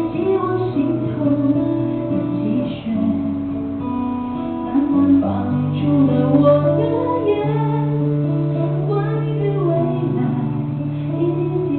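A woman singing a melody with acoustic guitar accompaniment, the guitar's low notes held under the voice.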